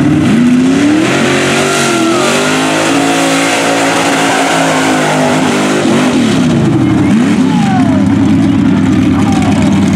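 Lifted square-body Chevy mud truck's engine revving hard under full throttle as it launches and spins its mud tires. The pitch climbs steeply over the first few seconds, holds high, drops briefly about six seconds in and climbs again.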